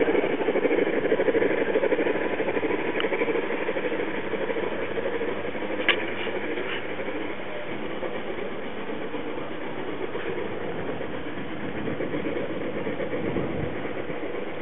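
Garden-railway model train running over the track: a steady rumble and clatter of wheels on rails, strongest in the first few seconds as it passes and easing a little as it moves away. A single sharp click about six seconds in.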